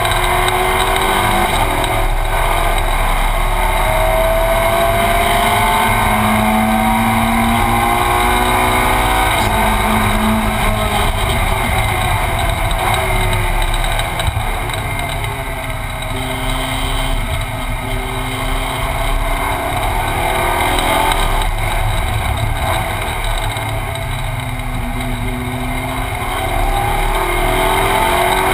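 Ferrari 458 Challenge's V8 engine heard from inside the cockpit, revving up through the gears in repeated rising climbs and dropping back on downshifts. The engine runs somewhat quieter, swooping up and down in pitch, through the second half.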